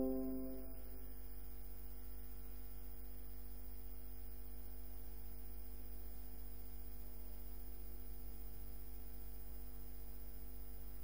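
Steady low electrical hum with a few faint constant tones above it; a ringing note fades out in the first half second.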